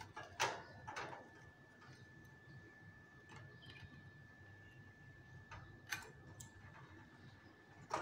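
Caged Fischer's lovebirds making a few short, sharp sounds, two close together at the start and two more about six seconds in, over a faint steady high tone.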